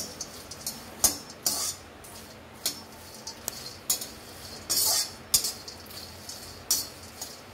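Spatula scraping and clinking against an iron kadhai, stirring fox nuts (makhana) that are dry-roasting on low heat. The strokes come irregularly, about one or two a second, with a few sharper knocks.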